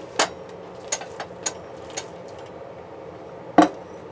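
Raw sliced beef being placed by hand into a plastic bowl: a few short taps and knocks as meat, hand and plate meet the bowl, with sharper knocks just after the start and about three and a half seconds in.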